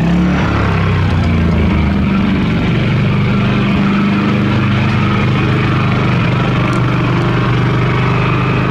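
Champion 3400-watt inverter generator running at a steady engine speed, loud close by. Its note shifts slightly in the first couple of seconds, then holds steady.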